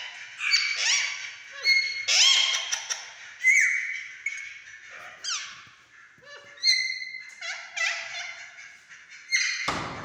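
Parakeets screeching: a string of harsh calls that slide downward in pitch, with a short lull about six seconds in and a loud burst of calls, with a thump, near the end.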